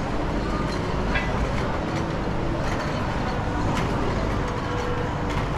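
Steady background din of a busy indoor market hall: a low rumble and murmur of voices, with a few short clinks and knocks.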